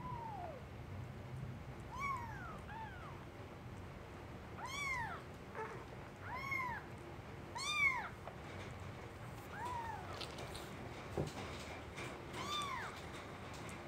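Young kittens mewing: about nine short, high-pitched mews, each rising and falling in pitch, at irregular intervals.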